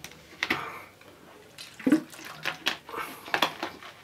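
A person drinking: several separate gulps and swallows with liquid sounds and small clicks of the drinking vessel in between.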